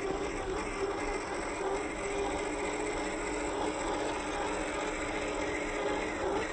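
1/10-scale RC Land Rover Series III crawler's electric motor and gear drivetrain whirring steadily as it crawls through loose sand, with a wavering mid-pitched whine.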